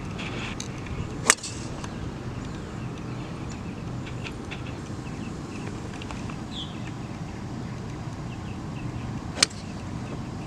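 Two golf tee shots: the sharp crack of a club head striking the ball off the tee, about a second in and again near the end, over steady outdoor background noise.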